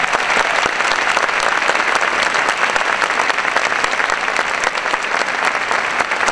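Large audience applauding steadily, a dense clatter of many hands clapping in a big hall.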